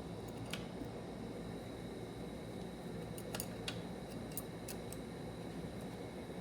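Light, sharp clicks of metal parts being handled and seated as a TH400 transmission valve body is fitted into the case, a few scattered ones with a quick cluster in the middle, over a steady low hum.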